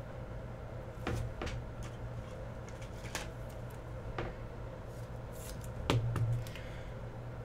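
Plastic card sleeves and holders being handled: a handful of scattered short clicks and rustles, the loudest about six seconds in, over a steady low hum.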